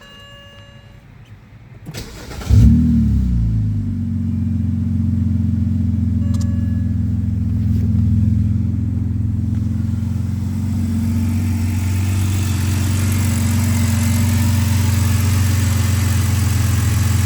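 A short electronic chime, then a BMW straight-six is cranked and catches about two seconds in, flaring briefly before settling into a steady idle through a muffler-deleted exhaust. No lifter tick is heard, with a hydraulic lifter additive in the oil.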